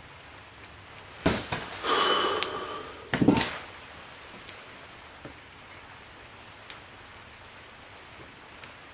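Metal engine parts of a Honda Super Cub C90 clattering in the crankcase as a gear and its shafts are pushed into place: a knock, about a second of metal scraping with a faint ring, then another knock, followed by a few light clicks.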